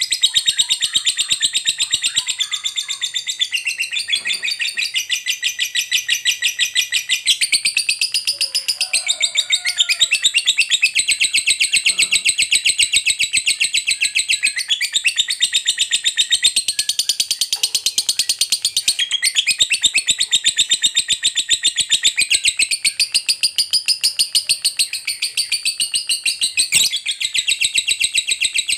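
Lovebird giving a long, unbroken, rapid high-pitched chattering trill, the sustained 'ngekek panjang' song prized in fighter lovebirds.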